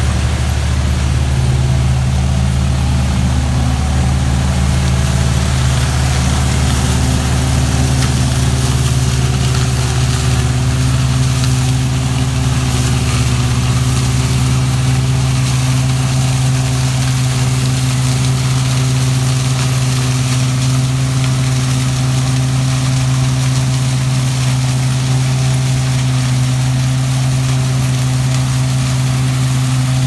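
Engines of a walnut harvester and a self-propelled bank-out cart running at a constant speed, a deep, even hum with no revving, while the harvest is unloaded from harvester to cart.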